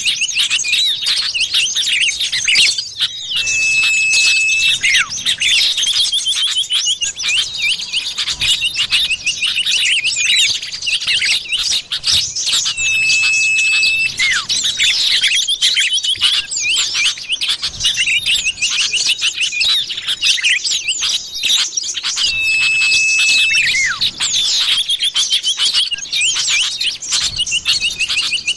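Common iora (cipoh) lure recording: a dense, rapid twittering of small bird calls, with a level, drawn-out whistle lasting about a second that comes back three times, about every nine seconds, as the recording loops.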